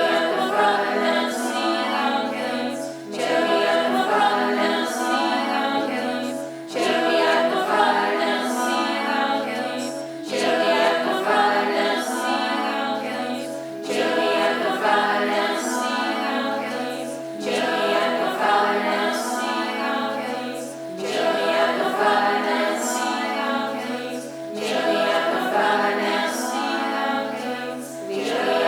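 A cappella choir of voices singing a short repeated phrase in layered parts, the pattern coming round about every three and a half seconds.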